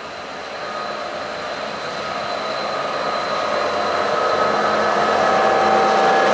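Class 223 (Siemens Eurorunner) diesel-electric locomotive hauling passenger coaches into a station, growing steadily louder as it draws close, with steady whining tones over the engine noise.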